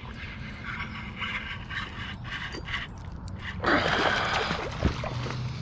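Spinning reel being cranked as a hooked largemouth bass is reeled toward a canoe, with water splashing around the line. About three and a half seconds in there is a louder, rougher splash as the fish thrashes at the surface.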